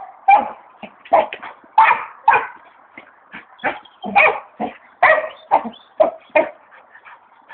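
Spanish Water Dog barking and yipping in short, repeated calls during play with a ball, about two a second at an uneven pace.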